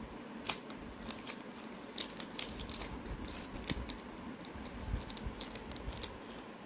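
Plastic packaging of a screen protector being picked open and handled, giving a scatter of small crinkles and clicks.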